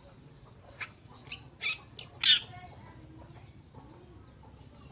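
Oriental reed warbler calling: a quick run of about five short, harsh notes over a second and a half, each louder than the last.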